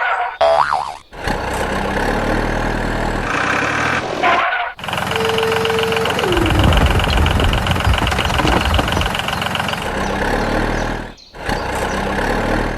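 Vehicle engine noise running steadily, in several stretches joined by abrupt cuts; about five seconds in a held tone sounds for a second, then drops away in pitch.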